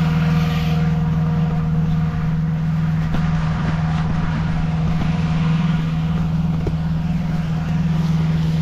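Gasoline-engine inflator fan running steadily at a constant speed, with a strong low hum, blowing cold air into the hot air balloon envelope during cold inflation.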